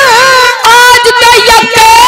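Amplified Haryanvi ragni singing: a young man's voice holds long, wavering notes into a microphone over instrumental accompaniment, with a brief break about half a second in.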